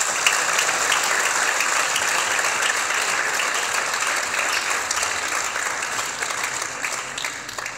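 Applause: many people clapping together, tapering off near the end.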